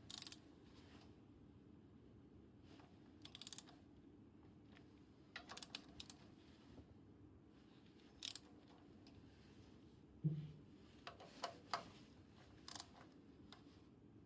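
Scattered short clicks and clinks of hand tools and metal parts being handled, some in quick runs of two or three, with one louder, duller knock about ten seconds in.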